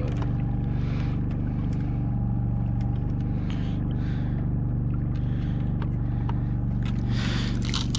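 A small engine on a bowfishing boat running at a steady speed, a constant deep hum, with a few light knocks and rustles near the end.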